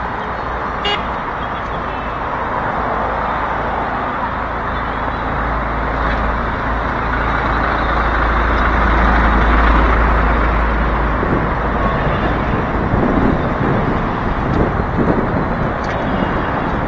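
Road and wind noise from riding a motorcycle taxi through traffic: a deep rumble of wind buffeting the microphone over a steady hiss. The rumble swells about halfway through, then turns gustier.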